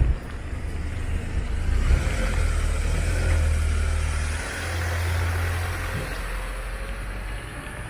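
Small Hyundai cargo truck's engine running low as it drives slowly past close by, tyres hissing on the wet road. The rumble grows a couple of seconds in and fades near the end.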